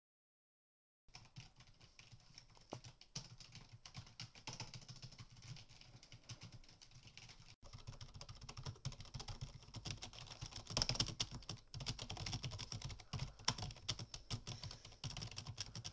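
Fast typing on a computer keyboard: a continuous clatter of key clicks that starts about a second in and grows louder about halfway through.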